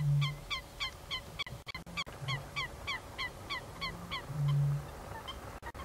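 Eurasian bittern booming: low booms, a loud one at the start, a fainter one about two seconds in and another loud one at about four and a half seconds. Over them runs another bird's steady series of high downslurred notes, about three a second.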